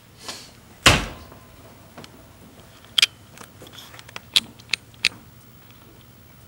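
A single dull thump about a second in, then four or five short, sharp clicks and taps.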